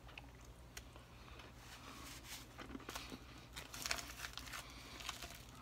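Faint crinkling and small scattered clicks from someone quietly eating a cookie and handling its wrapper, over a steady low hum in a small room.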